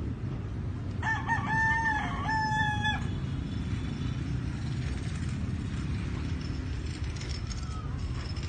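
Rooster crowing once about a second in: a single crow of about two seconds in two parts, over a steady low background rumble.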